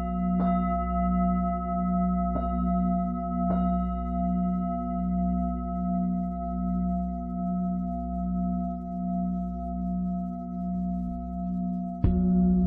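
Lingam singing bowl ringing with a long sustain, its low hum swelling and fading in slow, steady beats. It is tapped lightly three times in the first few seconds and struck harder near the end, which brightens and raises the ringing.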